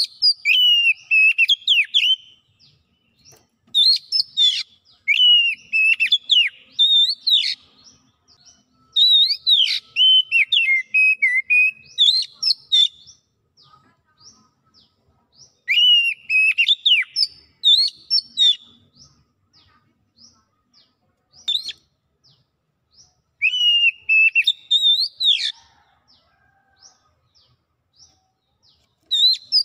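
Oriental magpie-robin (kacer) singing loudly in full song: whistled phrases of a few seconds each, rising and falling, with short pauses between.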